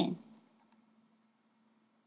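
A woman's voice trails off at the end of a word, then near silence: room tone with a faint steady low hum.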